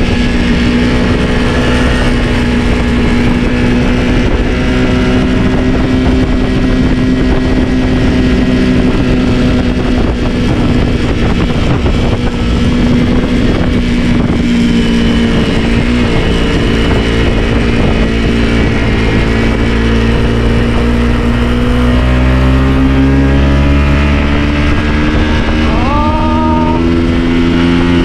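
Dirt bike engine running steadily while climbing a rough mountain track. The engine note dips around the middle and rises again near the end as the rider changes throttle.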